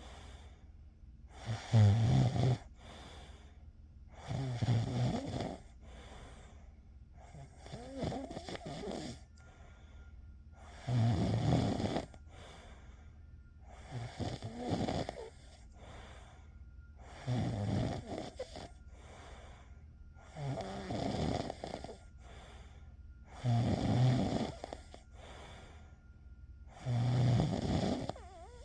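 A person snoring steadily, one rough snore about every three seconds, nine in all, with quieter breathing between them.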